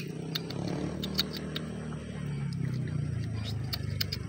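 A cat chewing food, with a run of irregular sharp crunching clicks. A low, wavering drone runs underneath and is the loudest sound.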